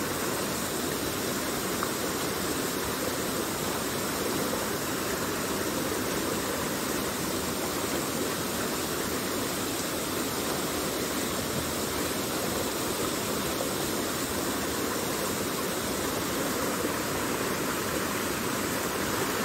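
A small stream running high, rushing steadily over rocks and little rapids.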